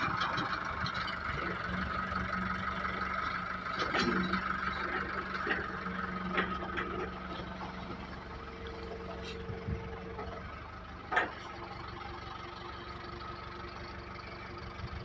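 An engine running steadily at a construction site, with a few sharp metallic knocks, the loudest about four seconds in and about eleven seconds in.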